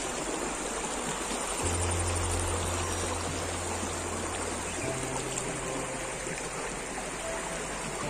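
Shallow rocky river flowing over stones, a steady rush of water. Soft background music with long held low notes plays underneath, its bass note changing about five seconds in.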